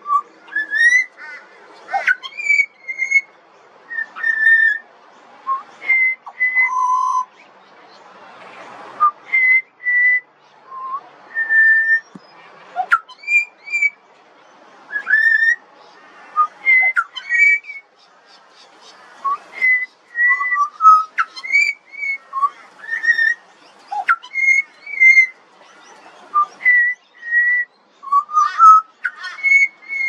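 Juvenile pied butcherbird singing: a steady run of short, clear whistled notes, some held and some sliding up or down, with short gaps between them.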